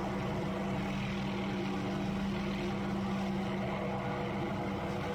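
Helicopter hovering with its suspended aerial tree-trimming saw running, a steady drone with one constant pitch.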